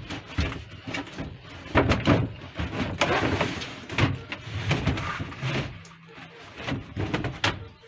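Wooden wardrobe cabinet being shoved and worked into place inside a VW Kombi van: repeated knocks and scraping of wood against the van as it catches at the bottom.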